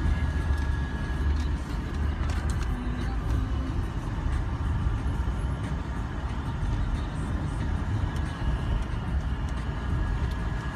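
Steady low rumble of a moving limousine heard from inside its back cabin: engine and road noise.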